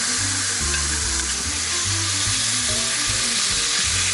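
Marinated pork strips sizzling steadily in hot oil in a frying pan, stirred and turned with a wooden spatula.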